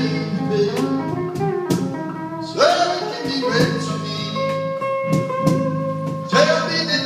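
Live band playing a slow blues ballad: an electric lead guitar holds and bends long notes over drums and cymbals.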